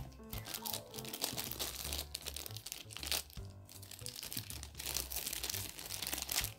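Packaging crinkling and rustling as it is handled, in many short crackles, over background music with a repeating bass beat.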